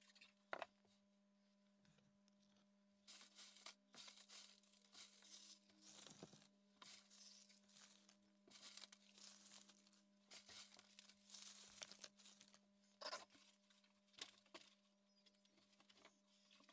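Dry leaf litter rustling and crackling as it is scattered by hand, in a run of bursts starting about three seconds in, over a faint steady hum.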